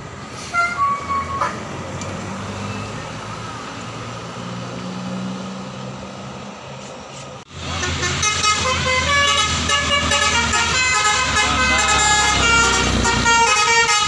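Tour bus engine running as it passes, with a few short horn notes near the start. About halfway in, a bus's 'telolet basuri' musical air horn plays a fast tune of many changing notes, loud over the engine rumble.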